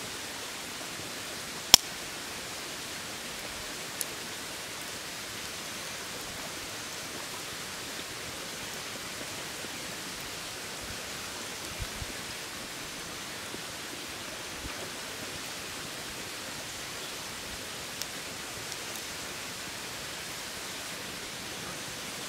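Steady even hiss of outdoor background noise, with one sharp click a couple of seconds in, a smaller one a couple of seconds later, and a few faint taps after that.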